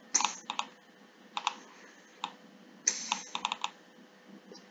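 Computer keyboard and mouse clicking, with sharp clicks coming singly and in quick clusters of three or four.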